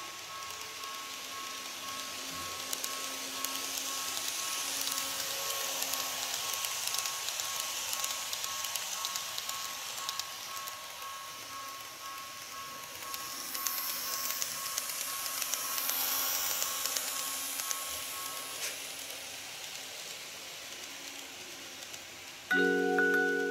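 N-scale model train running on the track loop out of view: a steady motor whine over the hiss of wheels on rail, swelling louder past the middle and then fading away. A bell-like tune starts near the end.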